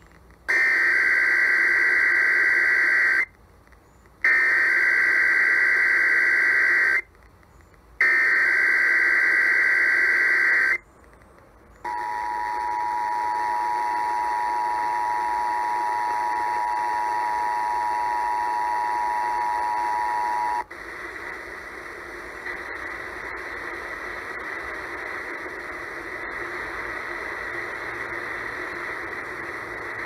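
Emergency Alert System tones heard through a radio's speaker: three bursts of warbling digital header data, then the steady two-tone attention signal for about nine seconds, which cuts off into hissy dead air. This is the start of a Required Monthly Test.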